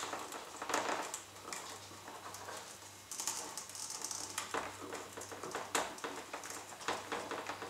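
Hand screwdriver working a wood screw into a model plane's motor mount, with scattered light clicks and scratches of handling.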